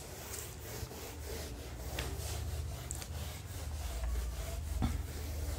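Eraser rubbing across a whiteboard in repeated wiping strokes as the marker writing is cleared off.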